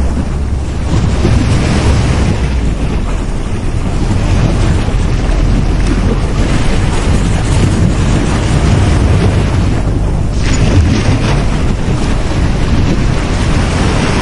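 Ocean waves breaking and washing on a beach, in repeated surges of surf, with a steady low rumble of wind buffeting the microphone.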